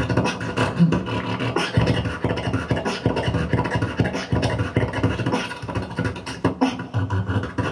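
Solo beatboxing into a handheld microphone cupped in both hands and amplified through a PA: a fast, steady stream of mouth-made kick, snare and hi-hat hits over sustained low bass tones.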